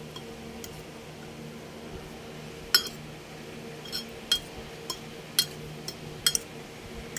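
Metal fork clinking against a ceramic bowl while breaking egg yolks and beating them into canned tuna, with sharp irregular clinks from about three seconds in. A steady low hum runs underneath.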